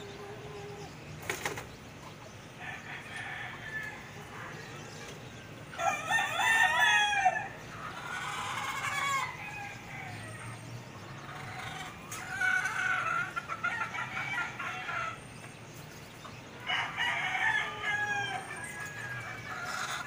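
Roosters crowing: four long crows, the loudest about six seconds in, the others about eight, twelve and seventeen seconds in.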